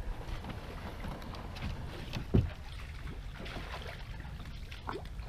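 Aluminium-free? No: a canoe being walked through shallow water, with water sloshing around the hull, scattered knocks and one louder thump about two and a half seconds in, over a low wind rumble on the microphone.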